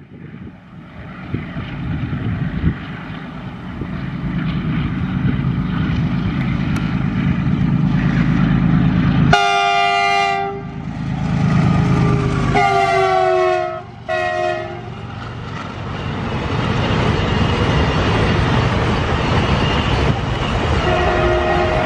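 WDG4G diesel locomotive hauling a double-stack container train passes close by: its engine rumble builds, then its multi-tone horn sounds one long blast about nine seconds in and two shorter blasts a few seconds later. The container wagons then roll past with a steady rumble, and a fainter horn sounds near the end.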